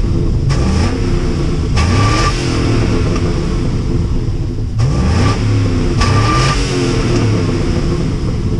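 A 2005 Chevy Trailblazer EXT's 5.3-litre LH6 V8 revved through its stock exhaust: four quick throttle blips, each rising and falling back to idle, a pair near the start and another pair about five seconds in.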